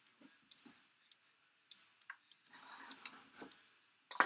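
A shrink-wrapped cardboard box being handled: scattered light clicks and a stretch of rustling plastic wrap and cardboard, then one sharp knock just before the end.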